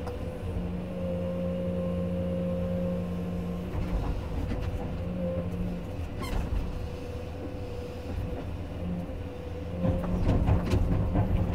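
Komatsu PC210 excavator's diesel engine and hydraulics running under load, a steady low hum with a held higher whine, as the bucket dumps soil, swings and digs back into the ground. A few short knocks sound over it.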